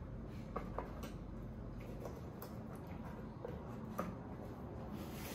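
A handful of faint, scattered clicks and light taps over a low steady hum, from the iPad's unboxed charger, cable and packaging being handled.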